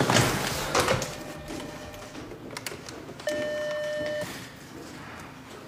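An office telephone ringing: one steady electronic tone about a second long, starting a little over three seconds in. It follows a short burst of rustling and handling noise near the start.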